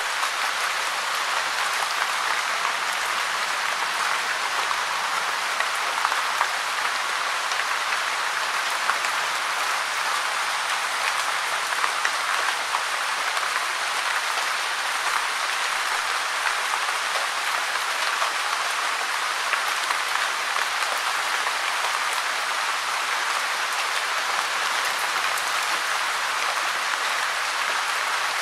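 Steady gentle rain falling: an even, dense hiss of many small drops, with a few slightly louder drips now and then.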